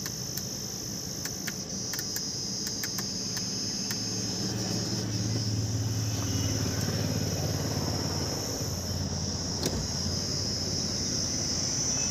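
Sharp clicks of a Fiat Punto's wiper stalk switch being worked in the first few seconds, with no wiper motor running in answer: the wiper motor is dead, which later turns out to be a damaged wiper relay. Crickets chirp steadily throughout, and a low rumble swells in the middle and fades.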